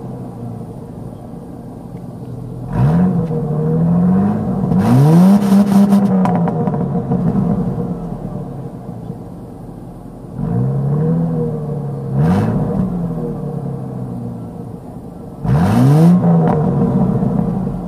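1999 Ford Mustang's 3.8-litre V6 breathing through its stock exhaust, blipped from idle five times up to about 4,200 rpm. Each rev rises sharply and sinks slowly back to idle: two close together, then two more, then a last one near the end.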